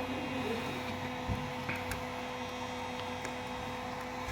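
Steady electrical hum holding two even tones, with a few faint light clicks about a second and a half in.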